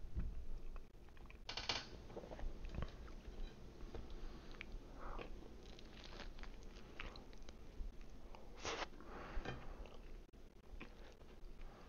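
A person chewing and biting pizza close to a headset microphone: many small wet clicks and crunches, with two brief louder noisy bursts, one about a second and a half in and one near nine seconds.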